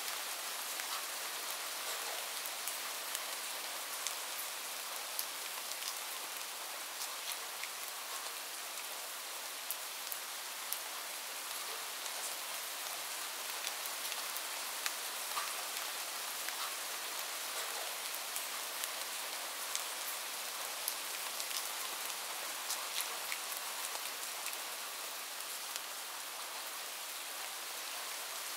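Light rain falling steadily: an even, high-pitched hiss sprinkled with many separate sharp ticks of single drops landing.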